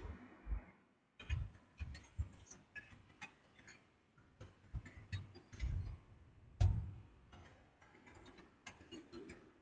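Hands handling something on a desk: irregular light clicks and taps with soft low knocks, unevenly spaced.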